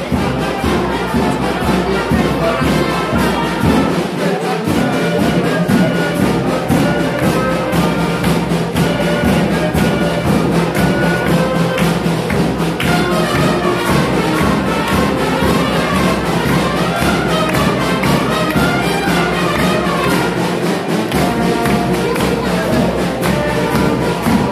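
Live band music with loud wind instruments playing a melody over a steady drumbeat.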